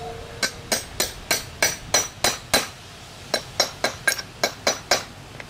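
Hammer striking a grommet setting tool, setting a solid brass grommet in heavy billboard vinyl: two quick runs of sharp metallic taps, about three a second, with a brief pause between them.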